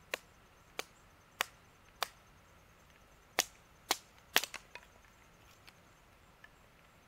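Wood being chopped by hand with sharp single strikes: four about 0.6 s apart, a short pause, then three more, with a brief clatter of small knocks after the last, and two faint taps near the end.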